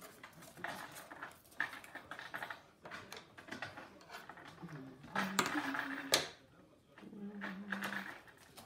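Construction paper rustling and sliding as it is handled on a wooden tabletop, then scissors being picked up and laid down, with a sharp click about six seconds in. Two short, low steady tones sound in the second half.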